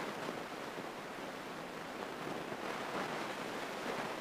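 Steady, even rushing noise of a single-engine Grumman light airplane in cruise, heard from the cockpit, with no distinct engine tone.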